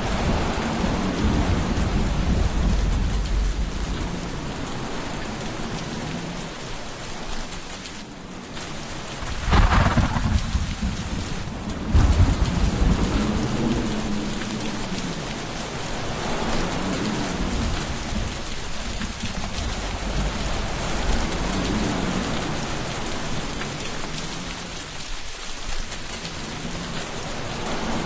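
Thunderstorm: steady heavy rain with low rolling thunder throughout, and two loud thunderclaps about ten and twelve seconds in.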